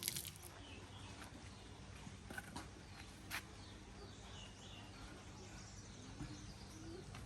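Faint outdoor background with scattered short bird chirps and a few light clicks, the sharpest about three seconds in.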